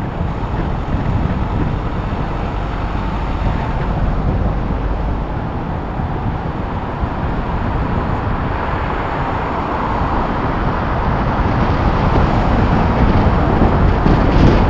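Wind rushing over the microphone of an action camera mounted on the outside of a moving vehicle, mixed with road and traffic noise; it grows louder in the last few seconds.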